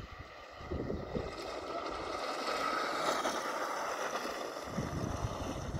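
A kart going past on the track, its motor sound swelling to a peak around the middle and then easing off, with wind buffeting the microphone.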